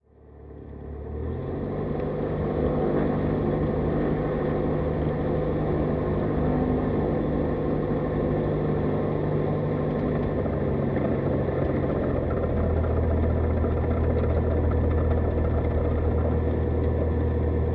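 Jabiru light sport aircraft's engine and propeller running steadily, heard from inside the cockpit while taxiing. It fades in over the first second or two, and about twelve seconds in the engine note shifts and grows slightly louder.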